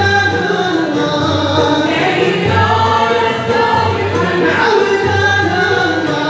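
Moroccan madih (devotional praise song) performed by an Andalusi-style ensemble: voices singing together over violins bowed upright on the knee and plucked ouds, with a steady low pulse about once a second.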